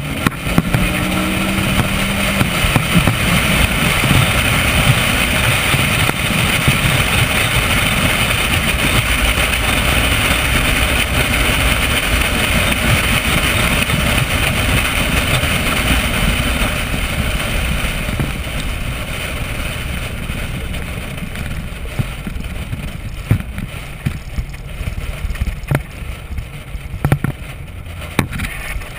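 Chevrolet Corvette V8 running at track speed on a parade lap, mixed with heavy wind and road noise on a body-mounted camera. It holds loud and steady, then eases off a little over the last third as the car lifts.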